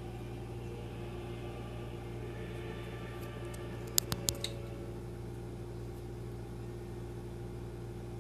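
Steady low appliance-like hum, unchanging throughout, with a quick run of about four sharp clicks about four seconds in.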